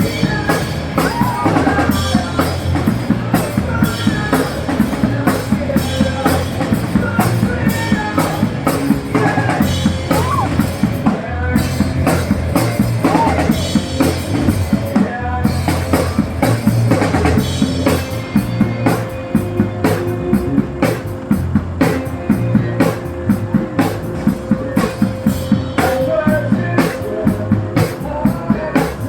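Instrumental rock music with a steady drum-kit beat, bass drum and snare, and guitar lines.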